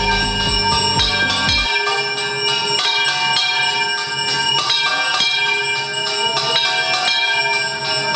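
Hindu temple aarti bells ringing rapidly and continuously in a dense clangour of many tones. A low beat runs under them and stops about a second and a half in.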